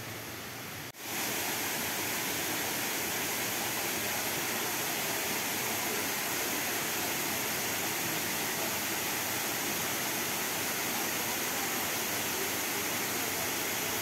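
Waterfall cascading over rock into a pool: a steady rushing of water. It comes in about a second in.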